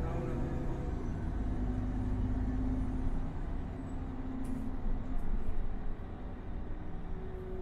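Interior noise of a moving city bus: a steady low drivetrain drone and road rumble, with a few faint high clicks or rattles about five seconds in.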